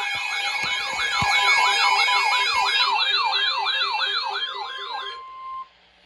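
Electronic siren in a fast yelp: repeated rising sweeps, about three a second, over steady tones and a pulsing lower tone. It cuts off about five seconds in, with one tone holding a moment longer.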